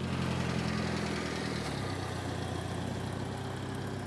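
Kei van's small 660 cc engine running at low speed as the van drives slowly in; its note drops slightly about a second and a half in.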